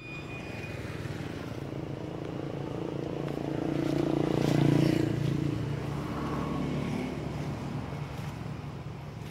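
A motor vehicle's engine passing by: a steady low hum that swells to its loudest about halfway through, then fades.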